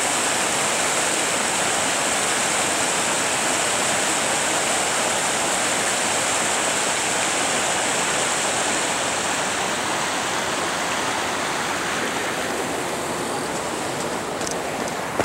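Steady rush of a river running high and muddy after heavy rain, easing slightly near the end. Footsteps on gravel begin just before it ends.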